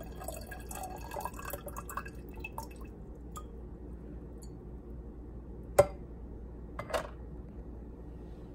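Glass electric kettle heating water toward the boil: dense small crackles and ticks from bubbles forming on the heating plate, thinning out after a couple of seconds, over a low steady hum. Two sharp clicks stand out, a loud one about six seconds in and another about a second later.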